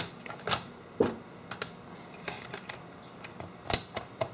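Irregular plastic clicks and taps of the blood pressure meter's case parts being handled and fitted back together, the loudest right at the start, about a second in and near the end.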